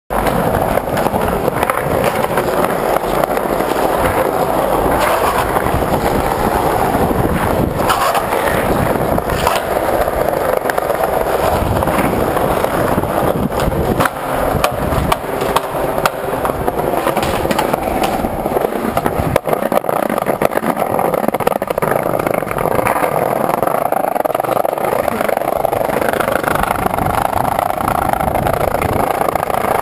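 Skateboard wheels rolling over concrete and paving: a steady, loud rolling rumble, broken by occasional sharp knocks.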